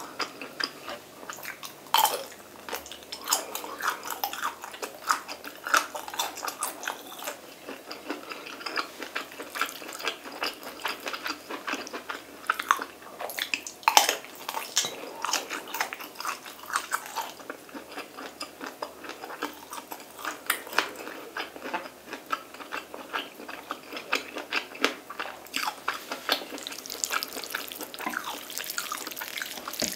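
Close-miked wet chewing, smacking and slurping of saucy black bean (jjajang) instant noodles and bites of sausage, a dense run of small sharp mouth sounds, with a longer slurp near the end.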